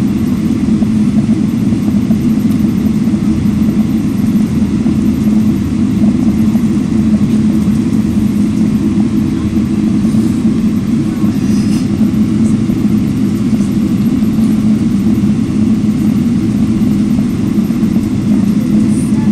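Steady low drone of an airliner's engines and cabin noise heard from inside the cabin while the aircraft taxis, the engines near idle with no change in power.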